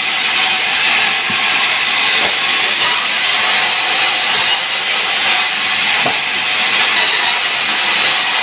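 Sawmill saw running through sengon timber: a steady, loud hissing rush of blade cutting wood.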